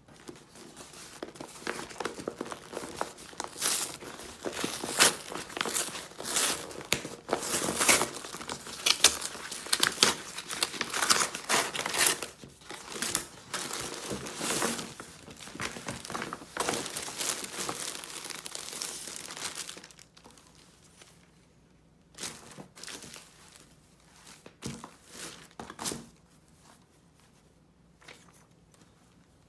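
Brown kraft-paper shopping bag being opened and handled by hand: continuous, irregular paper crinkling and rustling that stops about two-thirds of the way through, followed by a few brief rustles of paper.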